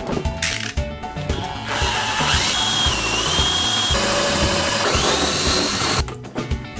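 Background music with a steady beat, over which, from about two seconds in, a power drill runs a hole saw into plywood: a loud whine that sags and then climbs in pitch, stopping about a second before the end.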